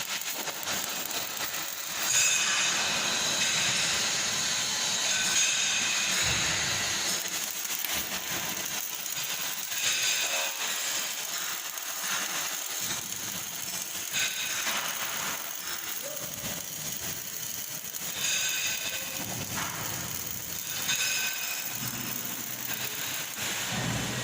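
Welding arc hissing and crackling steadily, with a few short breaks in the arc.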